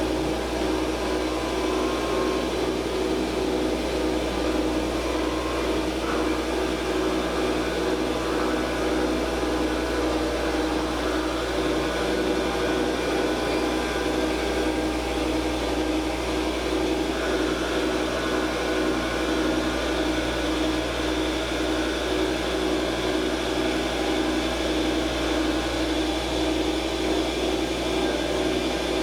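Forest Scientific WL-4000 CNC wood lathe running steadily while turning a wooden bat: a constant motor hum under the noise of the cutter shaving the spinning blank, its tone shifting slightly a few times.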